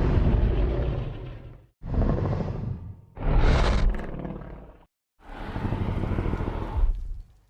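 Four separate Godzilla monster-roar sound effects played one after another, each one to two seconds long with a short silence between them; the third is higher and shriller than the rest.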